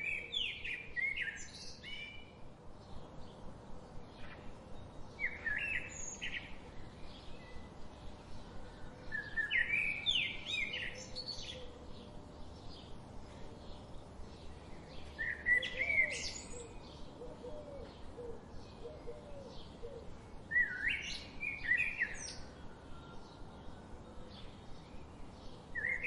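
A bird singing short phrases of quick, varied notes, each a second or two long and repeated about every five seconds, over a steady background with faint regular ticks.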